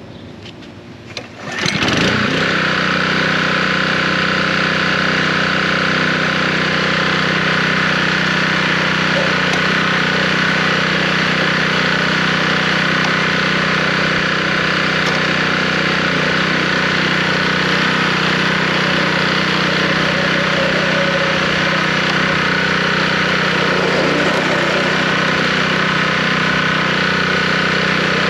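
California Trimmer reel mower's gas engine starting about two seconds in, then running at a steady speed.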